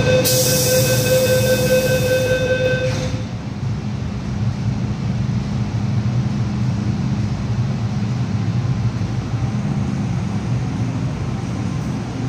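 MTR M-train doors closing: a steady high door-closing warning tone and a hiss for about the first three seconds. The tone and hiss then stop, leaving the steady low hum of the standing electric train.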